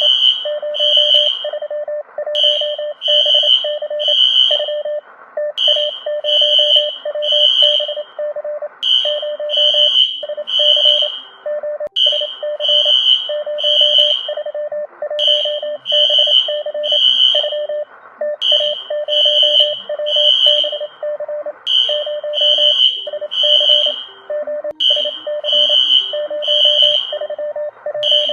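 Emergency alert alarm tone: groups of three high, shrill beeps repeating about every three seconds over a lower, rapidly pulsing tone.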